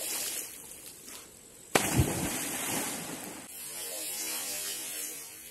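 A sudden loud splash about two seconds in as the feet of a man on a rope swing strike the river surface, followed by about a second and a half of rushing water noise, then quieter hiss.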